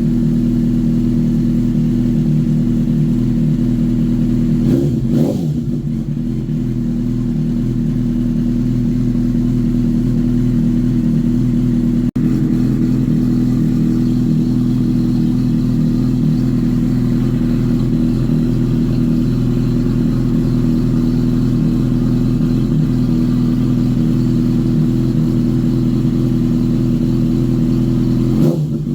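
Honda CBR1000RR SC57's inline-four idling steadily through an aftermarket silencer on a side-exit modified stock header, with a short throttle blip about five seconds in and another near the end.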